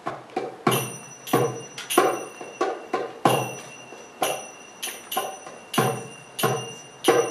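Hand drum and metal finger cymbals (snujs) playing a slow, uneven rhythm of single strokes; from about a second in, the cymbals ring out bright and sustained on many of the strokes.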